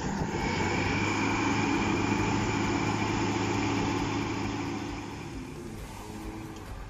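Heavy diesel engine of a Kirovets K-702 articulated tractor-dozer running hard and steady, with a thin high whine over it. It drops off about five seconds in.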